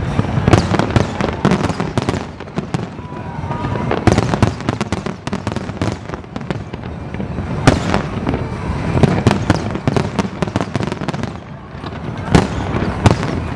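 Aerial fireworks going off in a dense, continuous barrage: many sharp bangs overlapping irregularly, with crackling in between.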